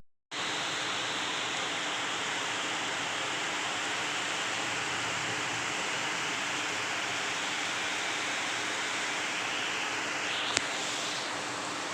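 Steady, heavy rainfall: an even, unbroken hiss of falling rain. A single sharp click sounds about ten and a half seconds in.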